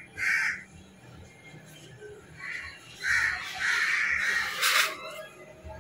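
Crows cawing: one short caw just after the start, another about two and a half seconds in, then a longer run of harsh calls from about three seconds to nearly five seconds in. A sharp click sounds near the end of that run.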